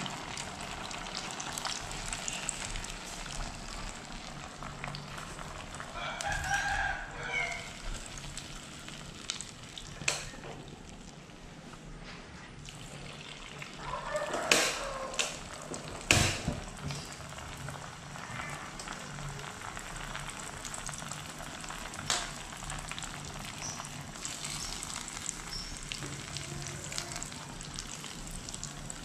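Hot oil sizzling steadily as tapioca-filled spring-roll-wrapper pockets deep-fry in a pan, with a few sharp clicks of metal tongs against the pan. Twice, a louder pitched call rises over the frying in the background, about 6 seconds in and again about 14 seconds in.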